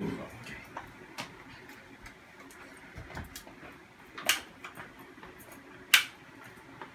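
Scattered sharp clicks and knocks from a wheeled commode chair being handled and set in place beside a bed, the two loudest about four and six seconds in.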